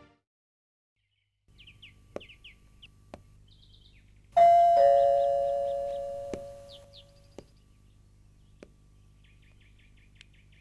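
Electric ding-dong doorbell chime sounding once about four seconds in: a higher note, then a lower one that rings out for about two seconds. Small birds chirp faintly before and after.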